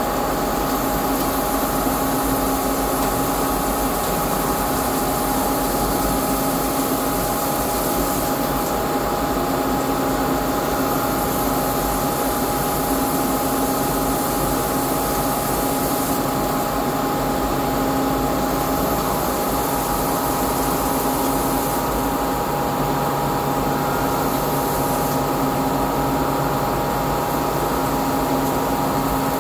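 CNC lathe running steadily while turning a cone shape: a constant motor whine with several fixed tones over a hiss. The upper part of the hiss shifts every few seconds.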